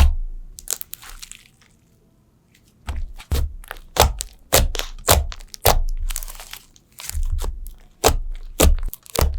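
Slime being worked by hand, making a string of sharp crackling pops and clicks at an irregular pace. It stops briefly about two seconds in, then the pops come thick and fast again.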